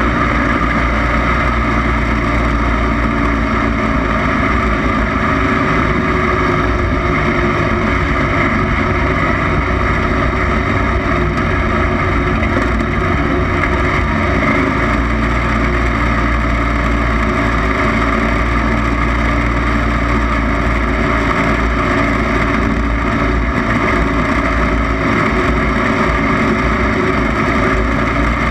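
Racing lawn mower's small engine running steadily at high speed, heard close up and unbroken throughout.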